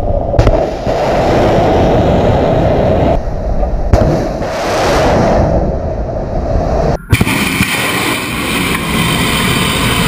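Kalibr cruise missile launching from a warship's deck launcher: a loud rocket-booster roar with sharp cracks. About seven seconds in, it cuts abruptly to a second, hissier launch roar.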